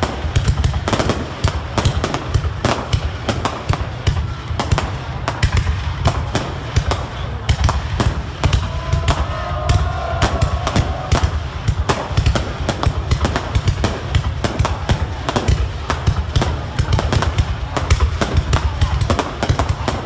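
Fireworks display: a dense, unbroken barrage of bangs and crackles, many per second, with deep booms underneath.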